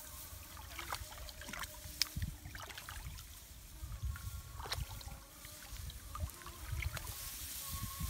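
Hands sloshing and splashing in shallow muddy paddy water while groping for fish by hand, with scattered small splashes and an uneven low rumble.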